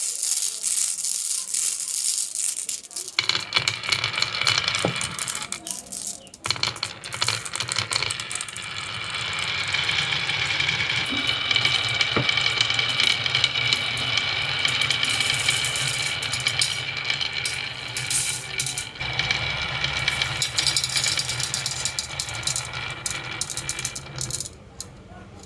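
Marbles clattering and rolling down a marble run: a dense rattle of clicks at first, then a long steady rolling rumble dotted with clicks that dies away near the end.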